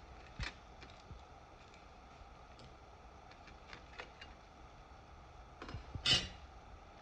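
Scattered light clicks and taps of small hard plastic and metal parts being handled during laptop disassembly. A sharp click comes about half a second in, and a louder one about six seconds in.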